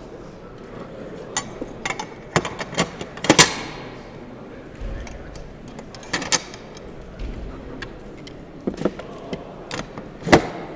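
Sharp metallic clicks and clacks of a KAR-21 modular rifle being reassembled by hand during a caliber swap to .308, as parts are seated and handled on a table. The two loudest clacks come about three seconds in and near the end.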